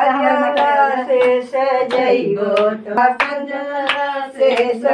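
Voices singing a Hindu devotional bhajan to the goddess, with hands clapping in a steady beat about every two-thirds of a second.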